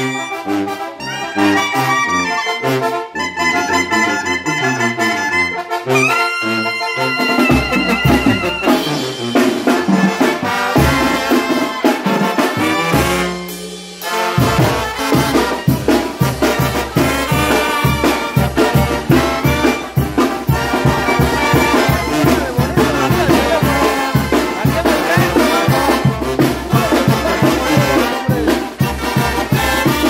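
Oaxacan brass band playing: trumpets, trombones and sousaphone over drum kit and congas. Brass phrases open, bass notes come in, and after a short dip about halfway through the full band settles into a steady beat.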